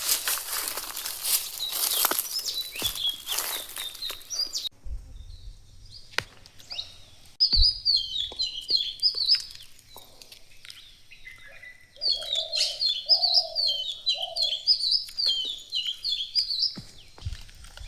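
Small birds chirping in quick, repeated high notes, in two spells, the second longer. It is preceded by a few seconds of loud, crackling noise that cuts off suddenly.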